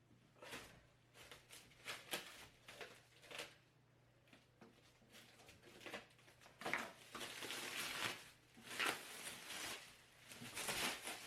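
Packing material and cardboard being handled while a printer is unpacked: irregular rustling, crinkling and scraping with light knocks, sparse at first and busier through the second half.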